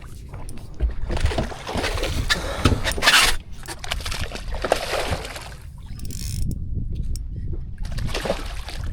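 Water splashing and sloshing against a small boat, coming and going in several stretches, over a low rumble of wind on the microphone.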